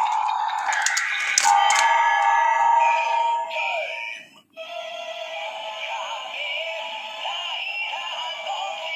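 DX Ziku-Driver toy transformation belt with a Ridewatch inserted: a few sharp plastic clicks in the first two seconds, then its electronic transformation music with a synthesized announcer voice, cutting out briefly midway before the music carries on.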